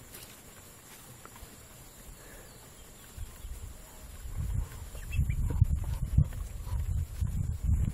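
A flock of Muscovy ducks feeding at a bucket, with a few faint, short soft calls. About halfway in, loud, uneven low rumbling from handling of the moving camera starts and covers them.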